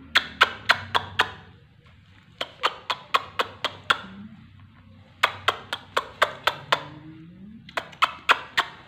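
Four short runs of sharp clicks, five or six in a run at about four a second, with quieter pauses between the runs.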